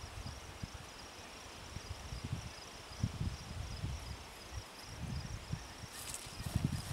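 A steady, pulsing high insect trill from the pond bank, over uneven low rumbles. About six seconds in come brief rustling crackles as someone stands and steps away through the grass.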